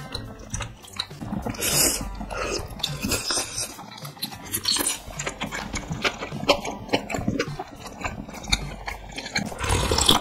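Close-miked eating sounds from spicy noodle soup: chewing and slurping, with chopsticks clicking against a ceramic bowl. Near the end comes a louder slurp as broth is drunk straight from the bowl.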